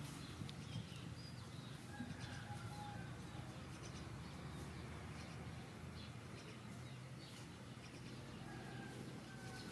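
Scattered bird chirps and short whistles over a steady low hum, with occasional small clicks.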